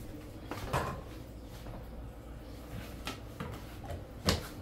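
Plastic food containers and lids handled on a kitchen countertop: a light knock about a second in and a sharper, louder knock near the end, over a steady low hum.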